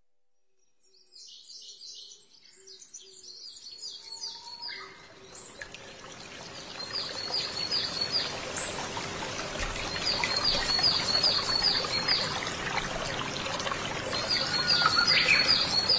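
Birdsong over trickling, running water, fading in from near silence: runs of quick, high chirps, with the water growing steadily louder.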